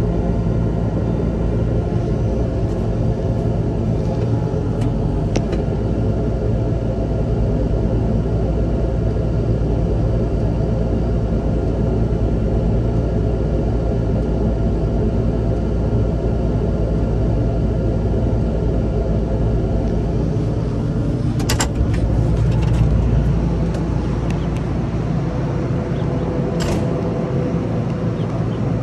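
A large engine running steadily at an even speed, with a few short sharp clicks about three-quarters of the way through.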